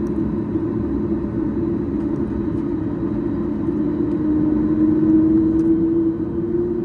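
Steady cabin noise inside a Boeing 737-8 MAX: a continuous rumble of the engines and airflow with a low hum, which swells a little with a slightly rising tone about four seconds in before settling back.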